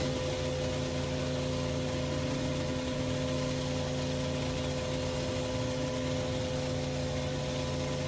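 Pressure washer engine running steadily under load, with the hiss of high-pressure water spraying over it.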